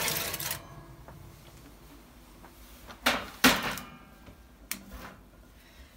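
Metal springform cake pan scraping out along an oven rack, then set down on the stove's metal grate with two sharp clanks about three seconds in, followed by a light knock.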